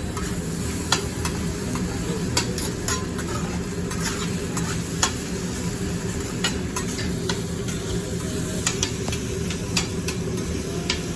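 Food sizzling on a hibachi flat-top griddle, a steady frying hiss, with scattered sharp clicks of the chef's metal spatulas against the griddle.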